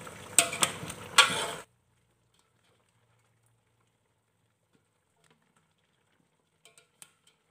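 A plastic spatula stirring chicken and potatoes in a bubbling stainless steel pot, knocking sharply against the pot three times in the first second or so. About a second and a half in the sound drops suddenly to near silence, broken only by a few faint clicks near the end.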